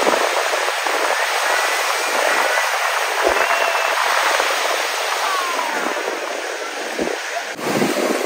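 Small North Sea waves breaking and washing up on a sandy beach: a steady hiss of surf.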